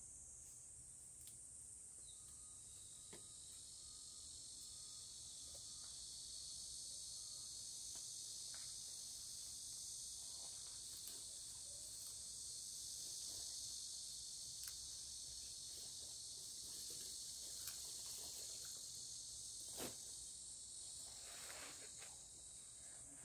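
Steady high-pitched shrilling of insects, with faint scattered clicks and rustles from green onion stalks being trimmed and handled, and one sharper tick near the end.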